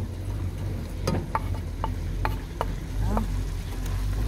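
Sliced raw potatoes tumbling into a clay cazuela of stew, then a metal slotted spoon stirring them in over a steady sizzle from the pot on the fire. There are a few sharp, briefly ringing clinks between about one and two and a half seconds in.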